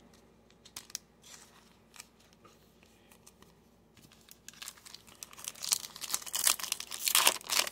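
Plastic wrapper of a Topps Chrome trading-card pack crinkling as it is gripped and torn open. It starts about halfway in and grows louder toward the end, after a few faint clicks of cards and a plastic sleeve being handled.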